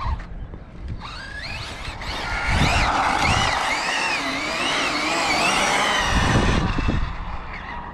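Arrma Infraction 6S radio-controlled car's brushless electric motor whining while it drifts, the pitch rising and falling again and again with the throttle. The whine starts about a second in and fades near the end.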